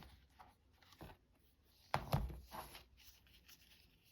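Paper and small craft tools handled on a tabletop: light taps and rubbing, with one louder knock about two seconds in.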